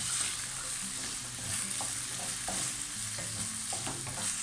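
Chopped vegetables sizzling in hot oil in a nonstick pan, under a steady hiss. A wooden spatula stirs and turns them, with scattered scrapes and taps against the pan.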